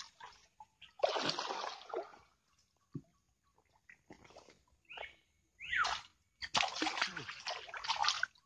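Swamp water splashing and sloshing in several bursts as a hooked snakehead fish thrashes at the surface while being pulled out by hand. The longest stretch of splashing comes near the end.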